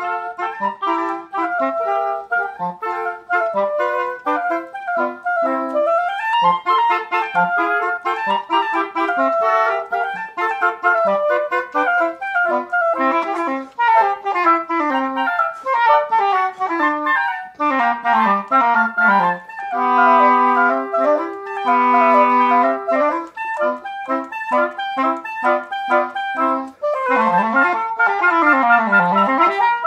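Woodwind trio of oboes playing a classical chamber piece in interlocking melodic lines. Around twenty seconds in the parts hold long notes together. Near the end the lowest part runs quickly up and down in scales under the upper voices.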